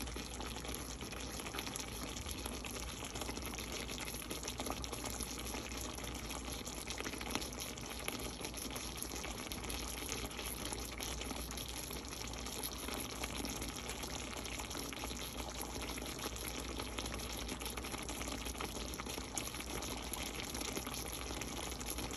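The juices released by a whole chicken boiling in a steel wok over high heat, a steady, even noise as the liquid cooks off.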